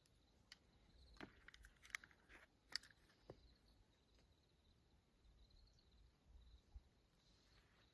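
Near silence broken by a handful of faint sharp clicks and short rustles between about one and three and a half seconds in, over a faint steady high-pitched tone.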